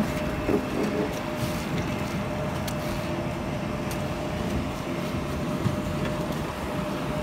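Steady airport apron machine noise around a parked Boeing 737-800: a continuous rumble with a steady humming tone, from the aircraft and its ground equipment.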